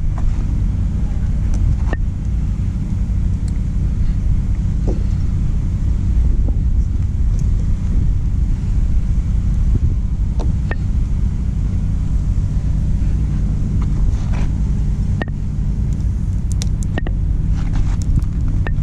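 Diesel truck engine idling with a steady low rumble, with scattered light clicks and taps over it.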